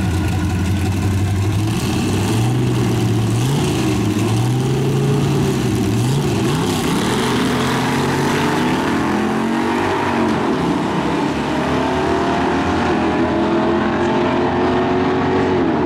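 Loud drag race car engines accelerating hard, the pitch climbing in several steps as gears change, then falling near the end.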